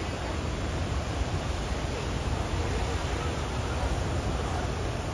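Heavy surf breaking on the shore: a steady wash of noise with no distinct events.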